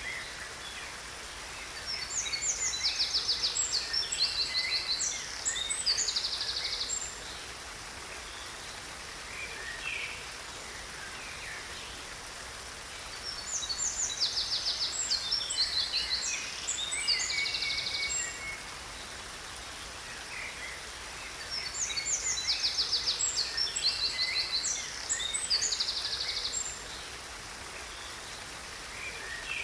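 A songbird sings three long phrases of rapid high trills and chirps, each about five seconds long and about ten seconds apart, over a steady rush of falling water.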